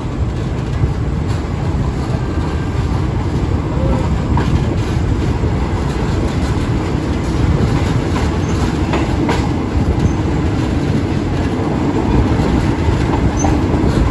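Thai ordinary passenger train rolling along the track, heard from aboard a third-class carriage: a steady rumble of wheels on rails, with a few sharp clacks from the rail joints.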